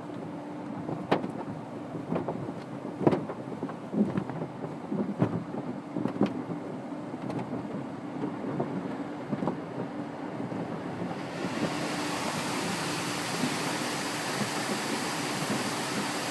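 Car wash heard from inside the car: irregular knocks and thumps on the body over a steady hum, then about eleven seconds in a steady, louder hiss of water spraying onto the car.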